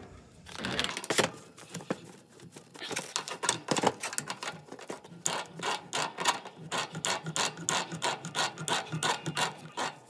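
Metal pipe threads clicking and grating as a threaded steel pipe nipple is turned by hand into the water heater's cold-water inlet port. The clicks come in a quick, fairly even run of about three a second through the second half.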